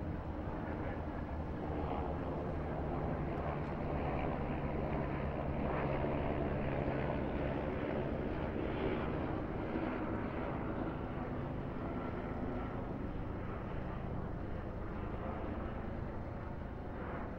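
Steady engine-like rumble with a low hum, rising and falling slowly in level.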